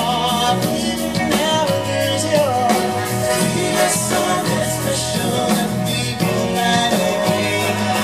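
Male vocal group singing a pop-soul song live in harmony, backed by a band with drums, saxophone and strings.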